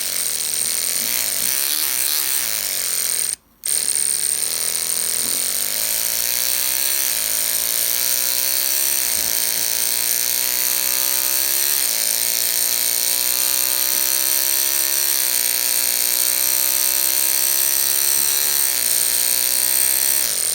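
Electric toothbrush buzzing with a steady high whine underneath, its pitch worked to imitate a car engine. The pitch wobbles at first, breaks off briefly, then climbs slowly and drops suddenly about six times, like a car accelerating up through the gears.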